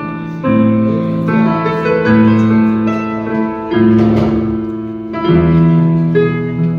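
Piano playing slow sustained chords, changing every second or two, in a live performance of a pop ballad.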